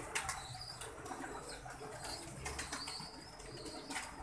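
A loft full of domestic pigeons: short flurries of flapping wings now and then, with faint high cheeping.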